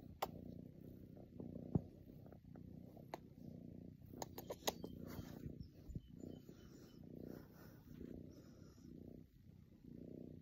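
Kitten purring close to the microphone, a low rumble that swells and fades with each breath, with a few sharp clicks and rustles from fur and hands against the phone.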